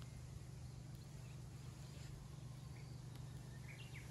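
Quiet outdoor ambience: a steady low hum with a few short, faint bird chirps scattered through it, the clearest near the end.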